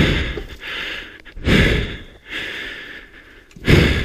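A person breathing hard close to the microphone: loud, rough breaths about every second, the three strongest roughly two seconds apart.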